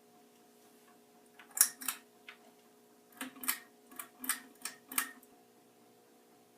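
Encon Petite ceiling fan's motor giving a faint steady hum, with a run of about ten sharp clicks, unevenly spaced, between about one and a half and five seconds in.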